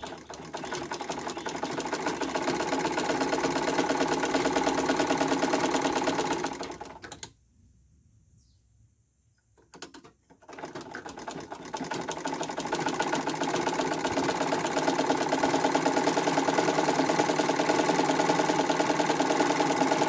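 Domestic sewing machine running and stitching fabric with a fast, even mechanical rhythm, stopping for about three seconds midway and then starting again for a second long run.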